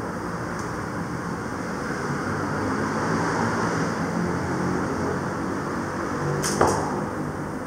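An arrow loosed from a hand-drawn bow: the bowstring snaps forward with a sharp crack about six and a half seconds in, and a second crack follows a split second later. Steady background hiss and rumble runs under it.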